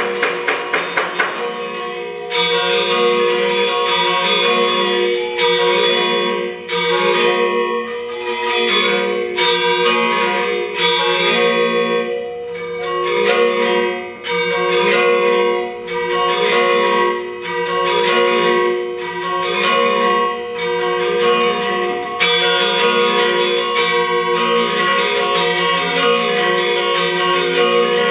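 Balinese gamelan accompaniment for shadow puppetry, most likely the gender wayang metallophones. Fast interlocking strokes on bronze keys ring on as bright, layered tones over a low figure that repeats about once a second.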